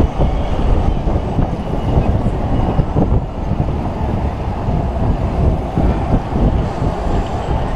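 Wind rushing over and buffeting the microphone of a rider flying round high up on a giant tower chain swing ride: a loud, deep, gusty rumble that never lets up.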